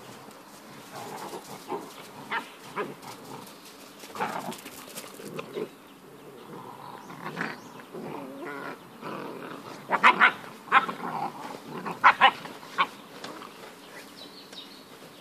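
Puppies yapping as they play-fight. Short sharp yaps come in clusters, and the loudest come around ten and twelve seconds in.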